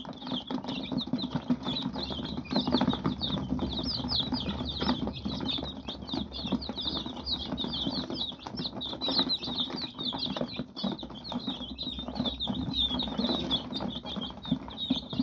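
A flock of young chicks peeping nonstop, many short high peeps overlapping, while they peck and scratch at chopped boiled egg on cardboard, with scattered tapping and scuffling.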